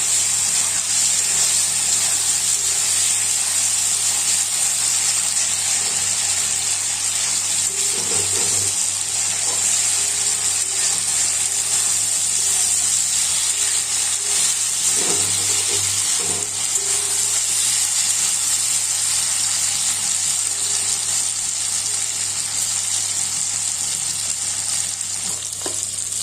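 Chicken pieces sizzling steadily as they fry in hot oil in a kadai, coated in green chilli and cumin-coriander paste.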